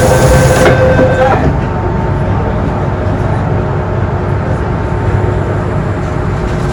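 MTR Island Line M-train: a steady electronic tone, the door-closing warning after the doors announcement, stops about a second in, along with a hiss. The train's running rumble, heard from inside the car, goes on evenly.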